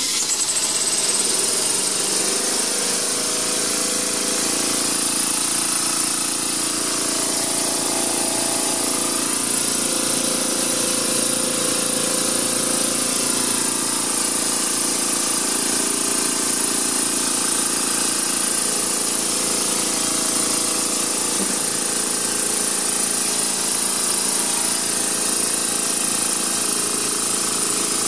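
Small homemade steam engine running at speed off a home-built boiler: a steady mechanical whir with a high whine that climbs in the first second or so as it comes up to speed, then holds level.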